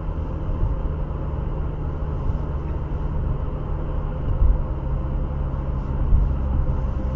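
Car driving on an open road, heard from inside the cabin through a dash cam: a steady low rumble of engine and tyres as the car gathers speed, with two low thumps, about four and six seconds in.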